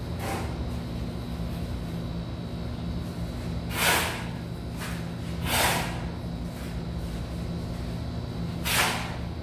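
A steel shovel scraping into sand and cement mortar three times, each a short gritty swish, over a steady low hum.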